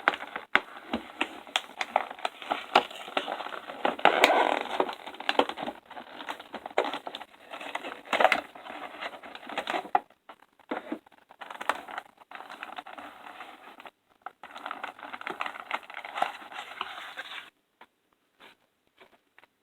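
Packaging of a boxed toy figure being opened and handled: irregular crinkling, rustling and crackling clicks with a few short pauses, stopping about two seconds before the end.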